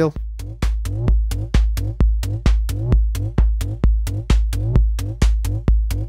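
Electronic drum loop from Maschine: a steady kick drum about twice a second with short, bright noise hits between the beats, from a snare and hi-hats synthesised from white noise on Native Instruments Massive's noise oscillator and shaped by its filters.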